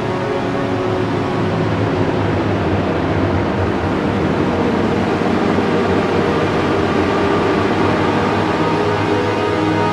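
Background music of long held tones over a steady, even wash of noise.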